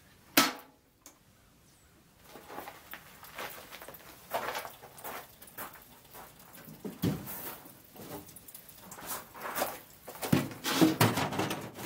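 Irregular handling noises: a sharp click about half a second in, then scattered knocks, scrapes and rustling, busier near the end as a plastic container is moved about.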